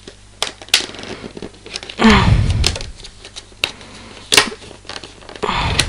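Hard plastic blister packaging being pried and pulled open by hand: irregular sharp crackles and snaps, with a longer crinkling stretch about two seconds in and again near the end.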